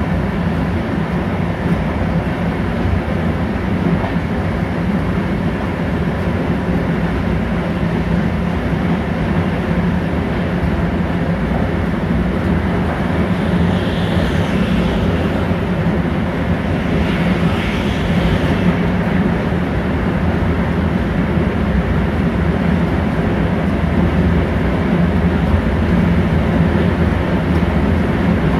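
Interior running noise of an InterCity passenger coach under way: a steady, loud rolling rumble of wheels on rail. The higher-pitched noise briefly rises twice near the middle.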